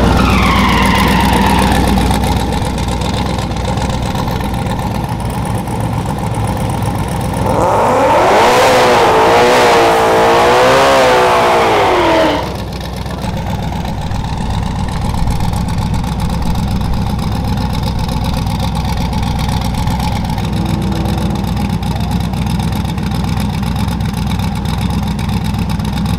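Turbocharged V8 of a Pontiac Trans Am drag car running with a steady low rumble. About eight seconds in it revs hard for some five seconds, its pitch wavering up and down, then drops back.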